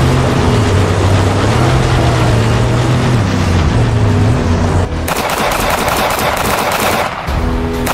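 Film sound-effect vehicle engines running with a low drone that shifts in pitch. About five seconds in, rapid machine-gun fire breaks out for about two seconds, pauses briefly, and starts again near the end.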